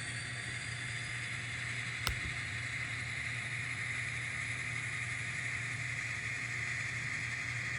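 Small N scale model train running steadily over the layout track, a continuous motor and wheel hum, with one sharp click about two seconds in.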